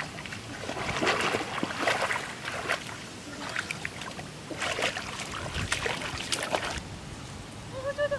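Muddy pond water sloshing and splashing in irregular bursts as hands grope through it underwater, feeling for fish. The splashing stops abruptly about seven seconds in.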